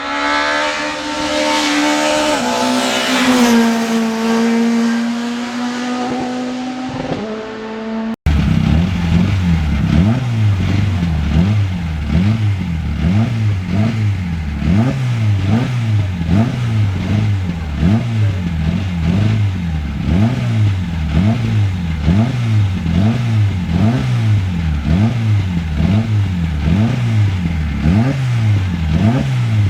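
Racing car engines on a hill climb. First an engine holds a high, fairly steady pitch that dips and shifts a couple of times. After a sudden cut about eight seconds in, an engine revs up and falls back over and over, roughly once a second.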